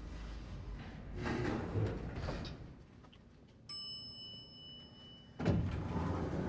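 Elevator arrival chime: a single bell-like ding, then the elevator doors sliding open about a second and a half later, the loudest sound.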